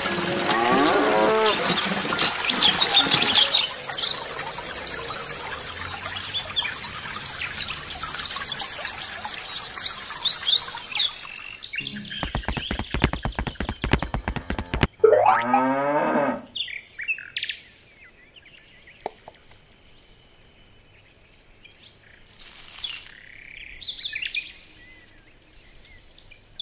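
Farmyard sound effects: songbirds chirping densely for the first half, then a few seconds of a rapid buzzing rattle, then a cow's moo falling in pitch about halfway through.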